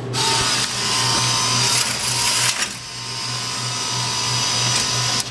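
A soda vending machine's vend motor runs for about five seconds on the water column, with a steady whine. It sounds like it is struggling, louder for the first half and a little quieter before it cuts off near the end. The water bottles are getting stuck in the column and not dropping.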